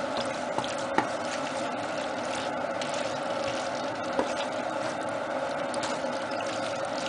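Caponata vegetables cooking in a frying pan with a steady hiss while being stirred with a wooden spatula, with a couple of light knocks of the spatula against the pan.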